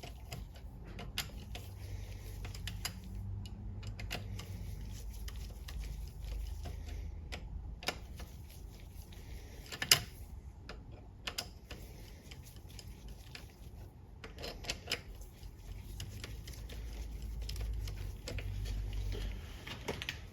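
Hand ratchet clicking in short runs as bolts are run in on a ZF 8HP70 transmission, with scattered sharp metal clicks, the loudest about halfway through.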